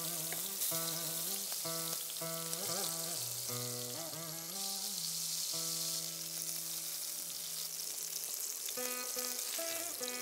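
Prawns sizzling steadily as they fry in hot oil in a wok, over background instrumental music.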